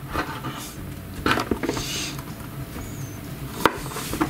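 Small metal tins of thinking putty being handled and opened: scattered light clicks and scrapes of tin lids, with a sharper click about a second in and another near the end.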